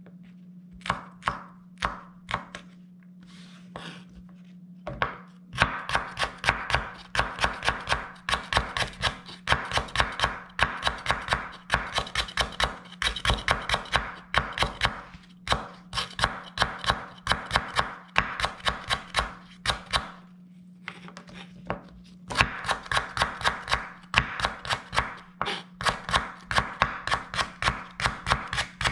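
Chef's knife chopping garlic, chili and lemongrass on a wooden cutting board. It starts with a few separate chops, then goes into fast rhythmic mincing of about five strokes a second, pauses briefly, and resumes. A low steady hum runs underneath.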